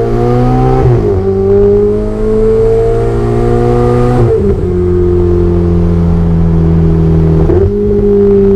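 Ferrari 488 Spider's twin-turbocharged V8 pulling hard under acceleration. The engine note climbs slowly and drops sharply at each upshift, about a second in, at about four seconds, and again near the end.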